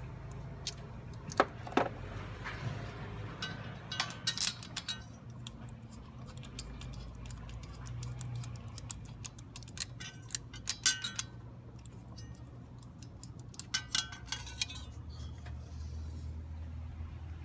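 Metal hand tools clicking and clinking in a few short clusters over a low steady hum, as spark plugs are worked out of a Chevy 350 V8.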